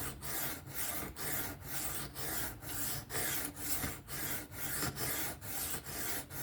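3V steel knife blade stroked back and forth freehand on a 600-grit sharpening stone, a steady rasping rub at about two strokes a second.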